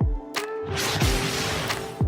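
Background music with a steady beat of deep, pitch-dropping kick drums under held chords, and a hissing cymbal-like swell through the second half.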